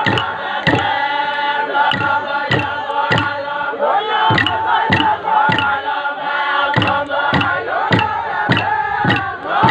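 A group of men chanting a song together in unison over a steady struck beat, a little under two beats a second.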